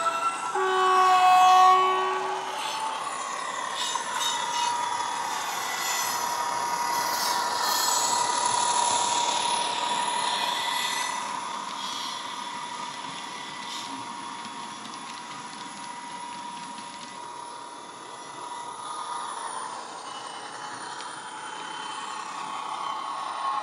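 A Bachmann Class 57 model's factory DCC sound decoder playing through its small speaker. A multi-note horn sounds briefly at the start, then the diesel engine sound runs steadily as the locomotive passes and slowly gets quieter. The horn comes from a sound file that seems based on an American engine and does not sound right for a Class 57.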